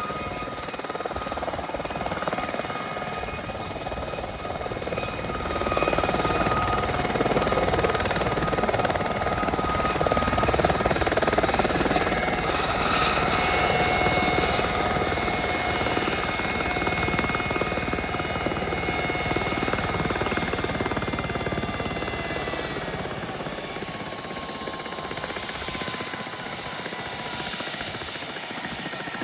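Aerospatiale Gazelle helicopter flying past, its turbine and fenestron tail rotor whining over the rotor noise. It grows louder toward the middle, then the whine drops in pitch about three quarters of the way through as it moves away.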